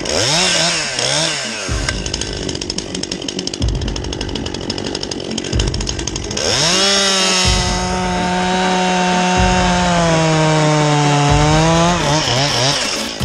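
Two-stroke top-handle chainsaw working on a macrocarpa trunk. The engine blips up and down twice, then saws under load for a few seconds, then holds a steady high whine for about five seconds while it throws sawdust, and the throttle flutters again near the end.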